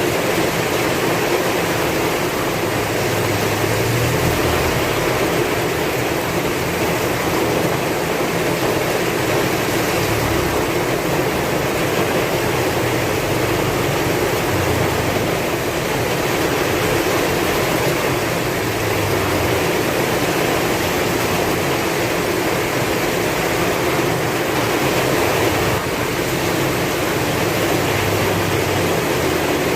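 Heavy rain falling steadily, with strong wind gusting in a low rumble that rises and falls.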